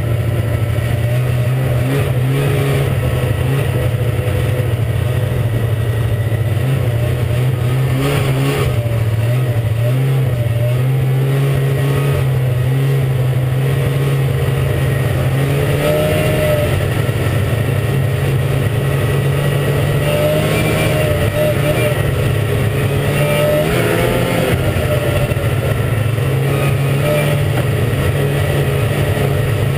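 Ski-Doo MXZ 380 snowmobile's fan-cooled two-stroke twin running under way, its pitch rising and falling several times as the throttle is worked.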